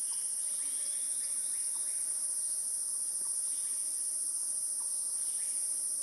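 Steady, high-pitched drone of insects in forest, unbroken and even in level.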